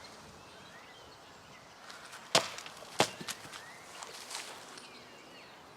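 A 5160 steel cleaver chopping into a squash: two sharp chops about half a second apart, followed by a few lighter knocks. Faint bird chirps can be heard in the background.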